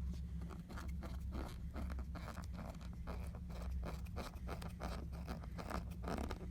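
Small screwdriver turning a tiny laptop screw: a quick, irregular run of small scraping clicks as the bit works in the screw head. The screw head is stripping.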